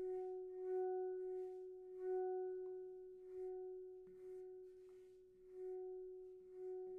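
Makai F# minor handpan in nitrided steel played softly: gentle repeated hand strokes keep one note ringing steadily with its overtones, the strokes swelling and easing.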